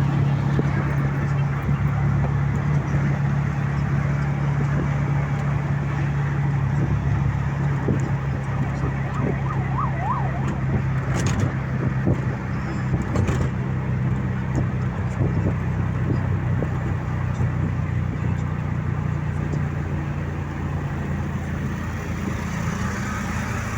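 A vehicle driving on the road, with steady engine and road noise and a constant low hum. A brief wavering tone comes about ten seconds in, followed by a couple of short clicks.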